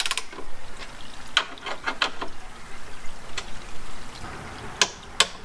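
Socket wrench clicking and clinking against metal as it is fitted to and worked on the rack's bolts: a series of separate sharp clicks, unevenly spaced.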